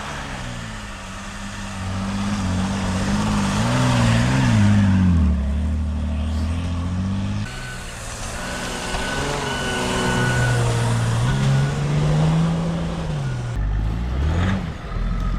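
4x4 SUV engine revving up and down under load while driving off-road, with tyre and body noise over it. The engine note changes abruptly twice.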